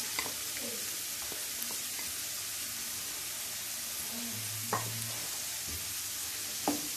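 Diced potatoes and chopped onion frying in hot oil in a nonstick pan: a steady sizzle, with a few light clicks as a wooden spatula starts to work the pan near the end.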